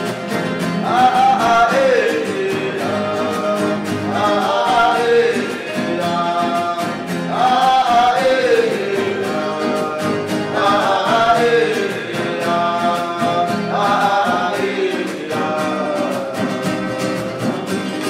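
Huni Kuin song: singing in phrases that fall in pitch, repeating about every three seconds, over steady acoustic guitar strumming.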